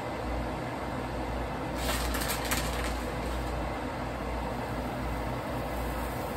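Steady hiss with a low hum from the stovetop and range hood while quesadillas cook. A plastic shredded-cheese bag crinkles briefly about two seconds in.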